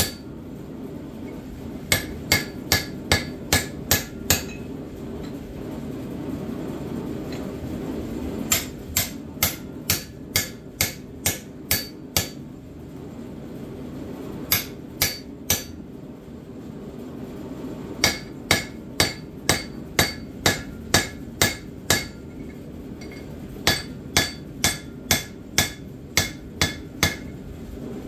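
Blacksmith's hand hammer striking steel on an anvil, ringing metal blows in runs of several strikes at about two a second, with short pauses between runs, as a pipe tomahawk is worked.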